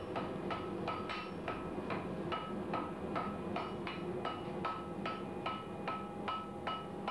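Blacksmith's hammer striking red-hot iron on an anvil, a steady run of blows about three a second, each with a short metallic ring from the anvil.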